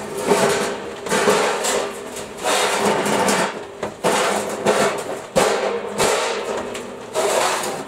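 Loose metal hardware clattering and rattling in a series of irregular bursts as boxes and tins of parts are rummaged through in search of a nut.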